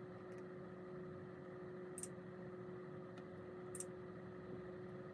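Faint steady hum with one constant low tone, broken by a few short, soft clicks.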